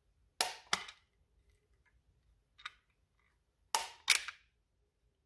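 Plastic push-button of a Hertzko self-cleaning slicker brush clicking as its wire bristles are pushed out and drawn back in: two pairs of sharp clicks, one less than a second in and one near the end, with a fainter click between.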